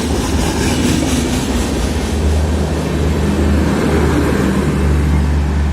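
Express passenger train running on the track: a loud, steady low rumble with wheel and rail noise.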